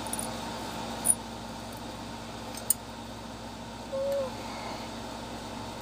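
Light, sharp metallic ticks, three of them, as small pin springs are dropped into the chambers of a deadbolt lock cylinder, over a steady background hum.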